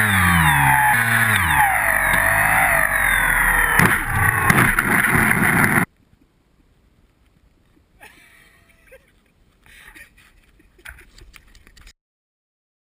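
Model plane's electric motor and propeller whine with wind rush, heard from the onboard camera, its pitch sliding down, with a couple of sharp knocks about four seconds in. It cuts off abruptly at about six seconds, leaving only faint scattered handling noises and then silence.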